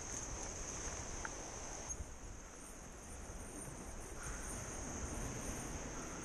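Steady, high-pitched insect chorus, an unbroken shrill trill, over a low, even rumble.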